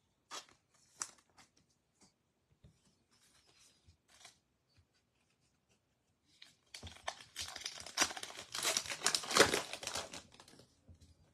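A few faint clicks, then a baseball card pack's wrapper being torn open and crinkled, with a few seconds of dense crackling in the second half.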